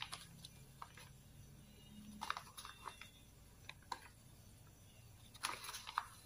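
Plastic flour packet crinkling in short, faint bursts as rice flour is tipped and shaken out of it into a bowl.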